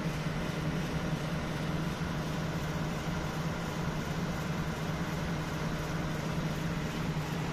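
Steady machinery drone of a ship's machinery space, with a constant low hum.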